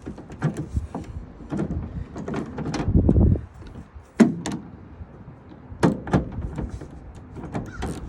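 Scattered clicks and knocks from a tailgate handle being seated in the tailgate and its bolts started by hand, with a low rumble about three seconds in.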